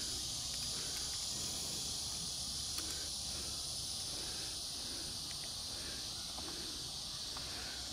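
Steady high-pitched chirring of insects, with a faint click about three seconds in.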